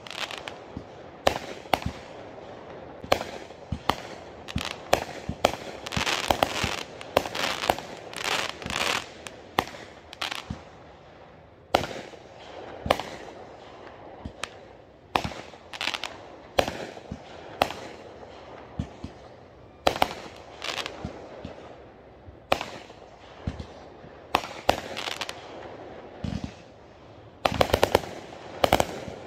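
Consumer aerial fireworks going off in a long irregular series of sharp bangs, some a second or two apart. A stretch of dense crackling comes about a third of the way in, and a quick cluster of reports near the end.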